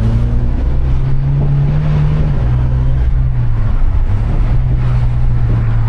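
Mitsubishi Lancer Evolution X's turbocharged 2.0-litre four-cylinder engine droning as the car drives along, heard from inside the cabin over tyre and road noise. Its pitch rises about a second in and drops back just after two seconds.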